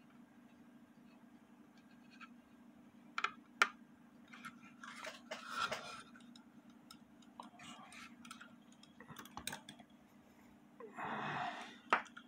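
Scattered small clicks, taps and brief scraping from hands working on a small wooden cuckoo-style novelty clock, fitting its little bird back onto its wire. The sharpest tap comes about three and a half seconds in.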